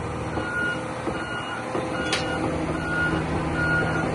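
A heavy machine's backup/travel alarm beeping in a steady repeating pattern, roughly three beeps every two seconds, over a large diesel engine running.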